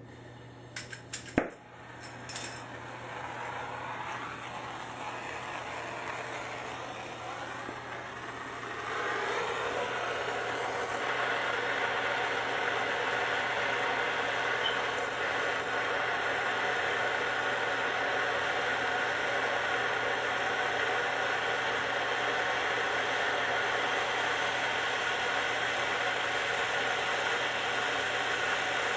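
Plumber's gas torch lit with a few sharp clicks about a second in, then the steady hiss of its flame heating a copper pipe fitting for soldering. The hiss grows louder about nine to ten seconds in and then holds steady.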